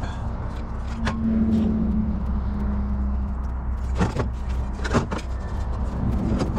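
An aluminium dash panel being set back into a buggy's steel roll cage: a few sharp metal knocks as it is shifted and seated. Under it runs a steady low rumble, with a held hum for a couple of seconds early on.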